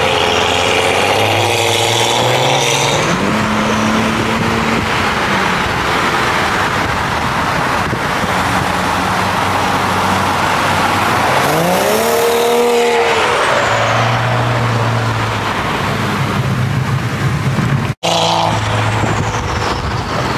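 BMW E90's N55 turbocharged inline-six with a catless VRSF downpipe, revving and accelerating through the gears so that its exhaust note rises and falls several times, heard from a car driving alongside. The sound cuts out for an instant near the end.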